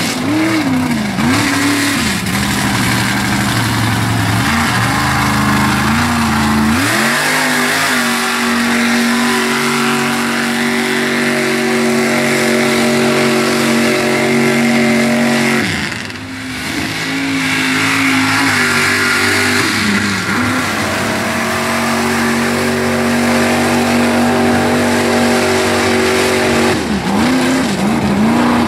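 Lifted Ford Bronco mud truck's engine held at high revs as it churns its big tires through mud. The pitch drops and swoops back up several times as the throttle is let off and floored again.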